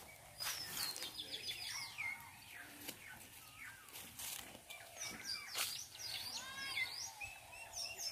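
Small birds calling: a busy run of quick high chirps and short falling whistled notes, with a few sharp clicks in between.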